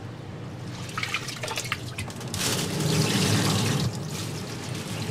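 Rice being washed by hand in a tub of water: sloshing and small splashes as a bowl scoops the wet grains, then, about two and a half seconds in, a louder spell of water pouring with the rice into a plastic colander.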